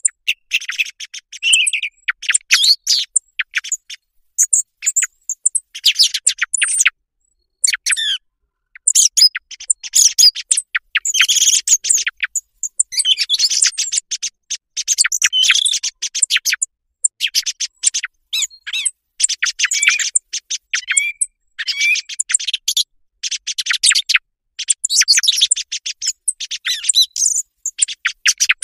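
Recorded song thrush song used as a thrush-hunting lure. It comes in loud, fast phrases of sharp, high clicking notes and short whistles, each phrase one to two seconds long, with brief pauses between them.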